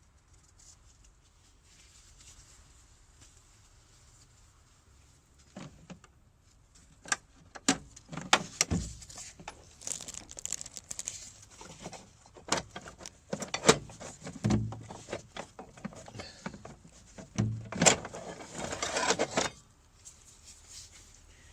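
Metal hand tools clinking, knocking and scraping against a motorcycle's outer fork tube while the old fork seal is worked loose. An irregular run of sharp clicks and heavier knocks starts about five seconds in and stops shortly before the end.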